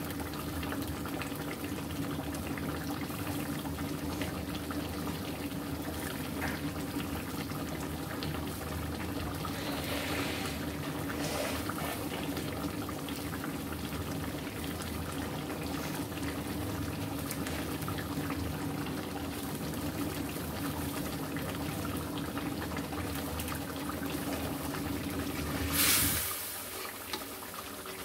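Hilsa fish pieces cooking in a thin turmeric masala in a wok, the liquid bubbling and sizzling steadily over a low steady hum. Near the end comes a brief louder sound, after which the hum stops.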